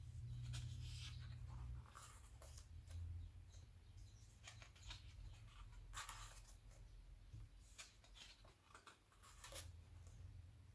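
Faint rustling and light clicks of glossy magazine pages being handled and turned, over a low steady hum.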